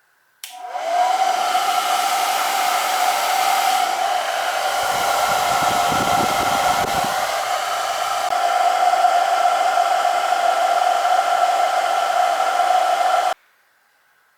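Homemade Coca-Cola-can hair dryer's small motor and fan spinning up with a rising whine, then running steadily with a high whine over rushing air, with a brief low rumble in the middle. It cuts off suddenly near the end.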